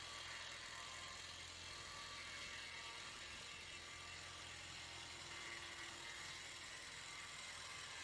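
Timberchamp portable sawmill running steadily, its engine and saw head humming at an even pitch.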